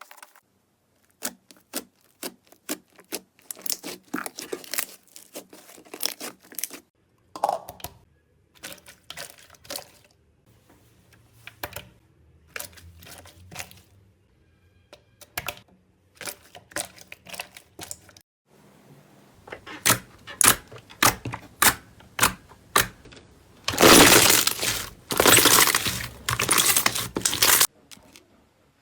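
Slime being pressed and squeezed by hand, making irregular sticky pops and crackles, with a dense, loud run of crackling near the end.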